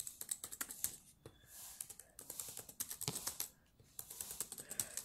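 Samsung laptop keyboard keys being pressed and rattled rapidly by fingers: runs of quick plastic clicks with brief pauses, a satisfying clacking.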